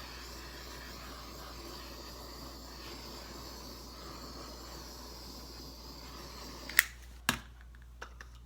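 Blow dryer running with a steady hiss that stops about seven seconds in, followed by a few sharp knocks.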